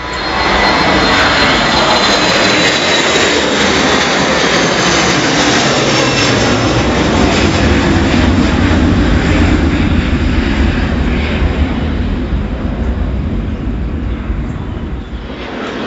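Twin-engine jet airliner climbing out after take-off: a loud jet roar that swells quickly at the start, with a high whine gliding slowly down, and eases off near the end as the aircraft draws away.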